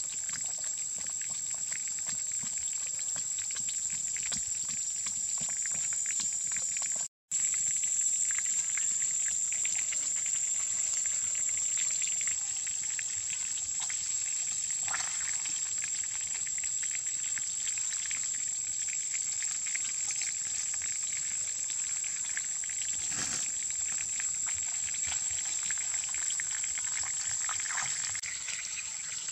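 Steady high-pitched insect drone, with faint scattered crackles and ticks beneath it. The sound drops out briefly about seven seconds in.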